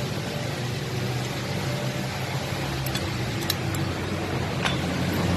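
A few light metal clinks of a wrench against a turbocharger's housing as it is unbolted by hand, over a steady low machine hum.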